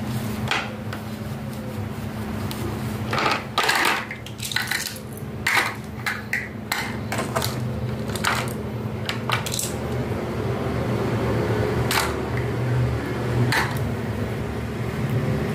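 Hard plastic wardrobe panels being handled and set down: a run of clicks and clatters, most of them between about three and ten seconds in, with two more later, over a steady low hum.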